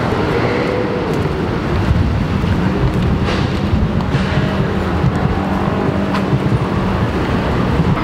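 Steady road traffic noise in a town street, cars and engines running.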